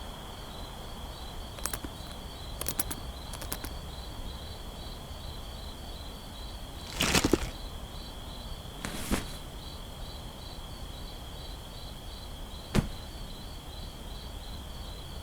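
Crickets chirping steadily in a night-time ambience, with a few short rustles and clicks of handling over it. The loudest rustle comes about seven seconds in.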